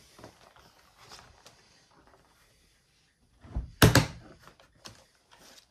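Lid of a battery-powered portable vacuum sealer being handled, with small plastic clicks and rustles and then two sharp clacks close together about three and a half seconds in.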